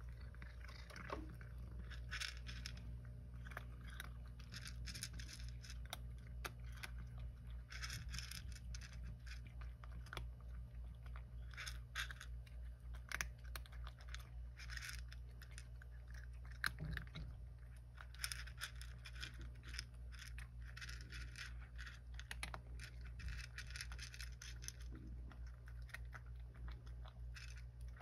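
A cat eating dry kibble: crisp crunching in runs of quick chews, with short pauses between mouthfuls. A steady low hum sits underneath.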